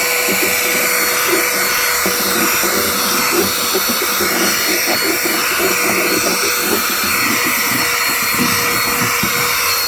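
Mini handheld 3-in-1 vacuum cleaner running: a steady motor whine over rushing air, with uneven crackling and rattling underneath.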